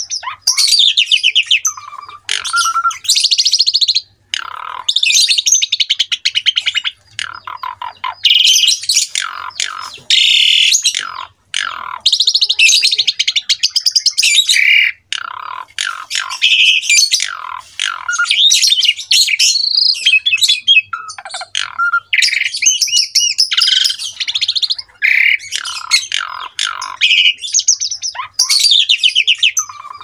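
Pied starling (jalak suren) singing a loud, varied song of whistles and fast buzzy, chattering trills, in phrases broken by brief pauses.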